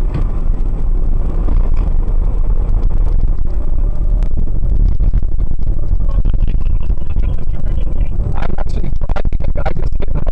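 Toyota Tacoma pickup pulling away from a stop and driving on, heard from inside the cab: a loud, steady low engine and road rumble that builds over the first couple of seconds, with a few knocks near the end.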